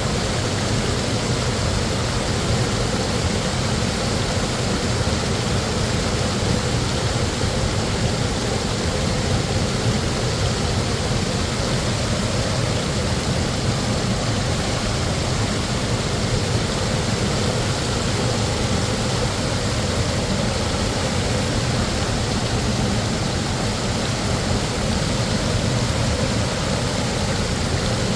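Large waterfall roaring steadily: heavy plunging water, a deep low rumble under an even hiss.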